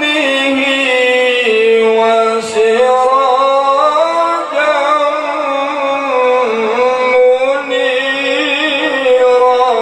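A man reciting the Quran in the melodic tilawah style into a microphone, holding long notes with wavering, ornamented slides in pitch.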